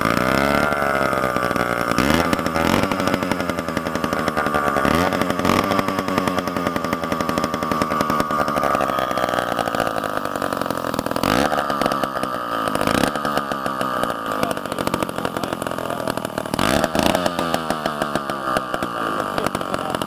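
Old Sears two-stroke chainsaw catching and running, its engine speed repeatedly dropping and rising again as the throttle is blipped.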